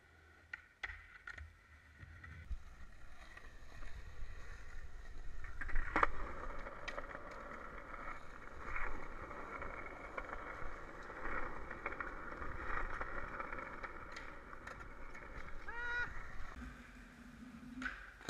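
Skateboard wheels rolling over rough asphalt, with a few sharp clacks of the board, the loudest about six seconds in. A brief high squeak comes near the end.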